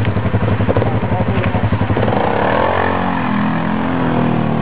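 ATV engine chugging at low revs, then revving up about two seconds in and holding the higher revs under load as the quad drives into a mud hole.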